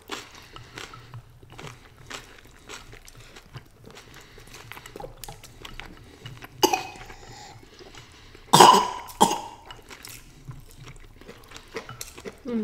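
A person coughing: one short cough about six and a half seconds in, then a louder double cough about two seconds later. Faint clicks of chopsticks and eating run underneath.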